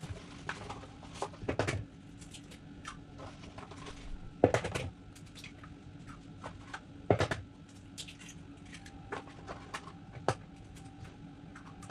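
Eggs being cracked against a mixing bowl: four sharp knocks roughly three seconds apart, with small clicks and taps of shell and handling between them.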